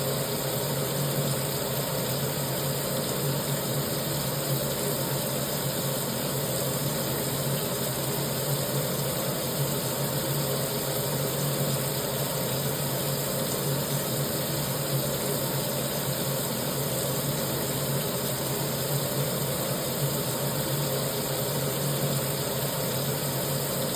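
Kitchen sink tap left running, a steady, unbroken rush of water with a low hum underneath.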